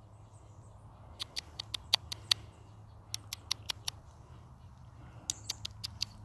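Sharp, brief clicks in short irregular runs, several to a second, with pauses between the runs, over a steady low hum.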